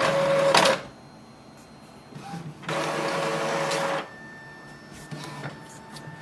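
Epson Expression Home inkjet printer running a colour copy job, feeding and printing a sheet. There are two loud stretches of mechanical whirring, one right at the start lasting under a second and another of about a second and a half near the middle, with quieter running between and after.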